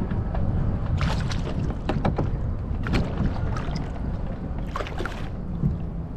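Wind on the microphone and water lapping against a kayak hull, with a few short splashes as a hooked fish is brought up at the surface beside the kayak.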